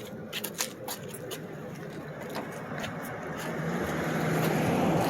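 A few sharp clicks, then a Toyota MR2's worn 5S-FE four-cylinder engine starts and runs, getting louder toward the end. The engine has a bad rod knock and is loud.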